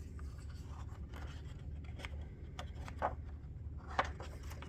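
Faint paper rustling and a few soft ticks as a picture book's pages are handled and turned, over a low room hum.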